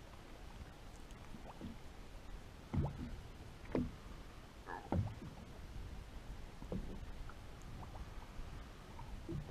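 Water slapping and gurgling against the hull of a small open motorboat, with a few louder slaps about three, four and five seconds in.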